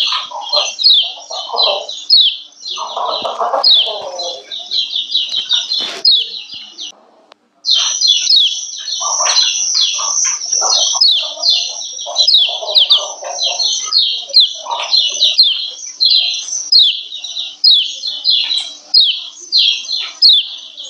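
Female kecial kuning (lemon-bellied white-eye) giving its 'ciak ciak' call: a fast series of short, high, downward-sweeping notes, several a second, the female call used to bring male kecial into breeding mood and get them singing. The calling breaks off briefly about seven seconds in.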